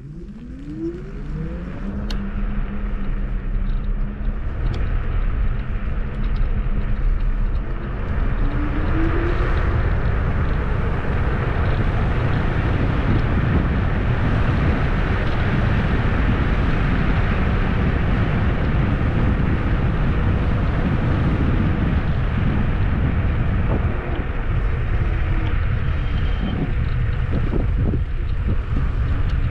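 Kugoo G2 Max electric scooter pulling away and riding. A rising motor whine comes in the first couple of seconds as it speeds up. After that come steady wind buffeting on the microphone and tyre rumble, which grow louder over the first several seconds and then hold, with a few brief whines along the way.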